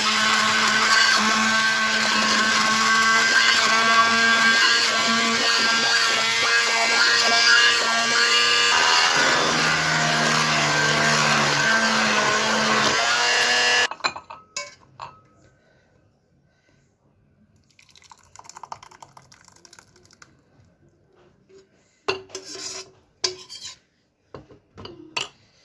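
Electric blender running steadily as it purées a cooked onion-and-herb soup, its motor pitch shifting partway through, then stopping abruptly about 14 seconds in. A few light clicks and knocks follow near the end.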